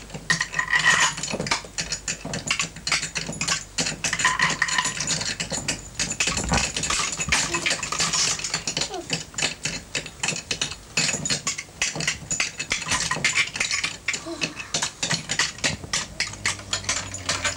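Small toy knight figures clicking and clattering against each other and the toy fort as they are knocked together, a dense run of light knocks with faint child voices.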